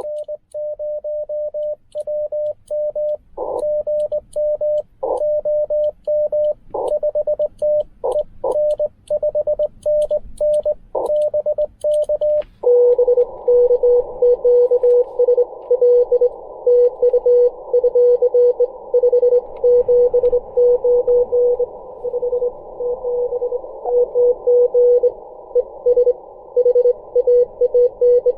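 Morse code (CW) from a Ten-Tec Argonaut V transceiver. For about the first twelve seconds a clean, higher-pitched tone keys dots and dashes, the radio's sidetone as the operator sends. Then it switches to a lower-pitched keyed tone inside a band of hiss: another station's CW received through the narrow CW filter, with band noise.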